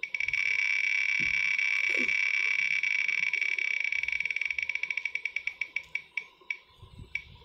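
Online spin-the-wheel's ticking sound effect as the wheel spins: a fast, even run of clicks that gradually slows, ending in a few separate ticks near the end as the wheel comes to rest.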